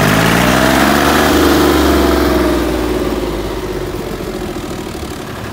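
Tractor diesel engine revving up in second gear while pulling: its pitch rises over the first second and a half, holds, then eases off a little.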